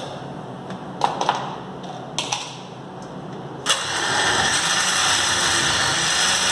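A few clicks and knocks as the blender lid is pressed on, then about three and a half seconds in the countertop blender's motor starts suddenly and runs steadily, blending blackberries.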